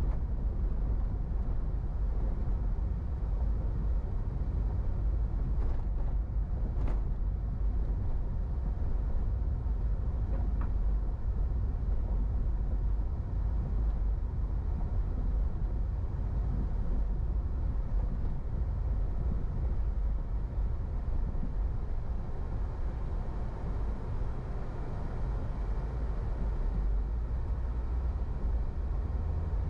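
A car driving along a city street: a steady low rumble of road and engine noise, with a couple of brief faint ticks about six and seven seconds in.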